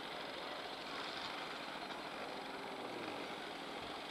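Steady distant rolling noise of a short container freight train moving away over the rails.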